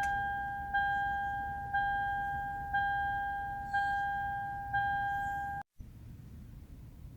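Car's dashboard warning chime sounding at key-on: a single bell-like ding repeated about once a second, six times, each fading before the next, then stopping suddenly.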